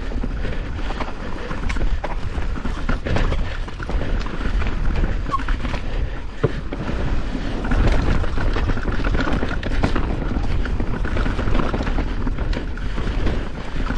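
Mountain bike on a muddy, rough trail: a steady low rumble with frequent knocks and rattles.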